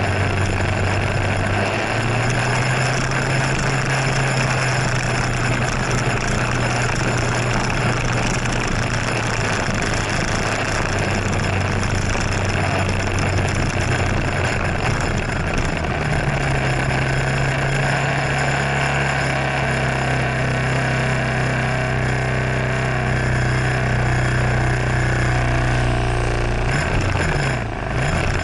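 Scooter engine running under a steady rushing hiss on the onboard microphone; its low tone steps up in pitch about two seconds in and again past halfway, then wavers near the end.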